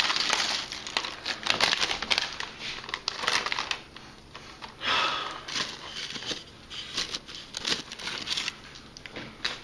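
Crinkling of a metallized Lay's potato chip bag as chips are poured out and slide and crackle onto a paper plate. The sound is loudest at the start, then continues as irregular crackles and rustles that grow softer about four seconds in.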